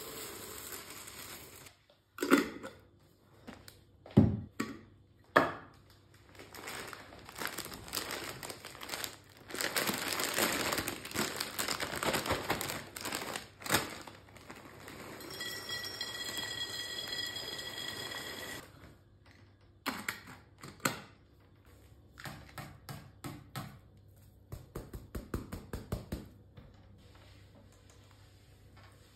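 Close handling noises: plastic packaging crinkling and rustling, with several sharp knocks of things set down and a quick run of small clicks near the end. A clear ringing tone holds for about three seconds in the middle.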